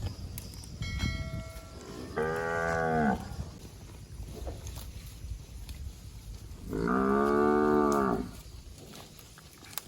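Cow mooing twice: a short moo about two seconds in and a longer one about seven seconds in.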